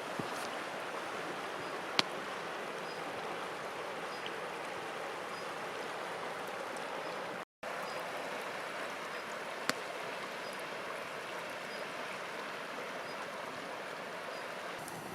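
Steady rushing noise outdoors, with two sharp clicks and a brief dropout about halfway through.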